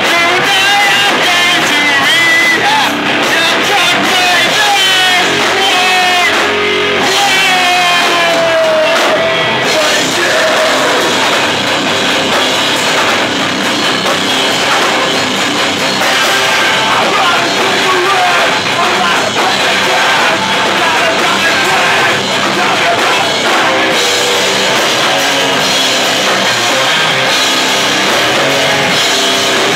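Live rock band playing loudly: electric guitar, bass guitar and drum kit, with singing through roughly the first ten seconds.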